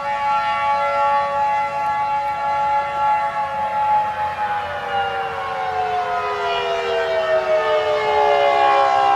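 Civil defense siren sounding a steady tone, then slowly falling in pitch from about four seconds in.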